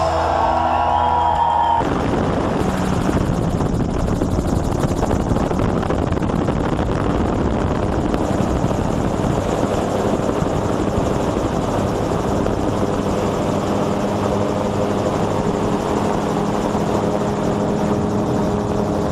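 Music cuts off about two seconds in, giving way to a steady, loud rushing drone with a faint low hum running under it.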